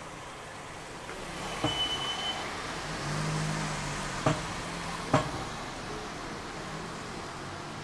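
Street traffic: a car's engine hum swells from about three seconds in and then holds. A few sharp knocks sound through it, and there is a brief high squeak at about two seconds.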